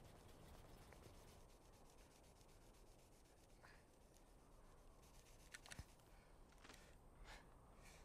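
Near silence, with a few faint, short rubbing and rustling sounds as a rope is handled at the man's bound hands.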